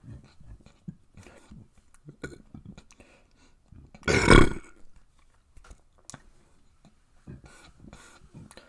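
A person burping: one loud burp about four seconds in, lasting about half a second, with faint short sounds before and after it.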